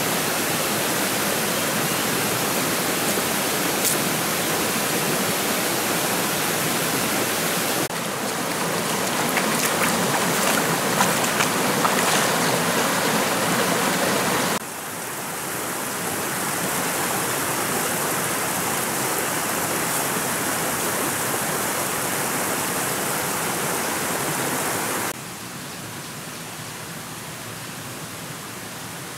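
Shallow stream rippling over stones, heard as a steady rushing hiss. Its level steps up and down abruptly a few times.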